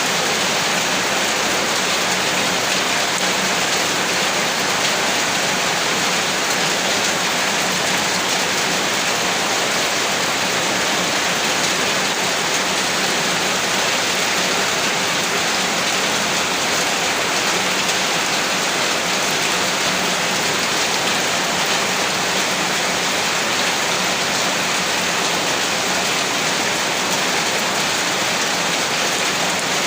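Steady rain falling on a rooftop, an even, unbroken wash of drops.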